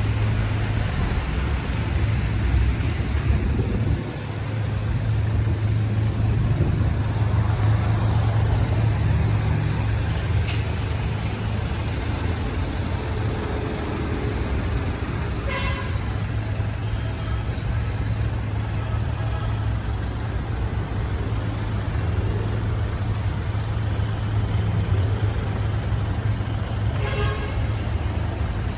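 City street traffic: car, truck and bus engines rumbling steadily and low. Two short vehicle horn toots sound, one about halfway and one near the end.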